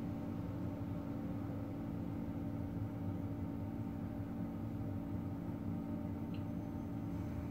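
Steady low mechanical hum with a constant droning tone over a low rumble: indoor room noise.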